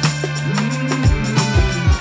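Background music with a steady drum beat over a held bass note and a melody.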